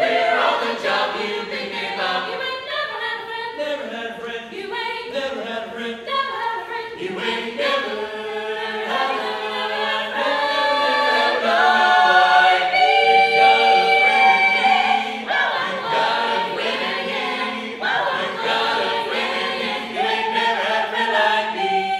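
Small a cappella vocal ensemble singing in harmony, with no instruments and no sound system. The voices swell to louder held chords a little past the middle.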